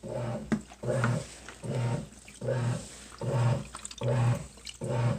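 Portable washing machine running a wash: the motor hums in short pulses about every three-quarters of a second as the drum turns back and forth, with water sloshing.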